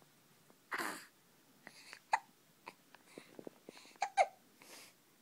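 Hiccups: three short, sharp hics, one about two seconds in and two close together about four seconds in, with soft breaths between.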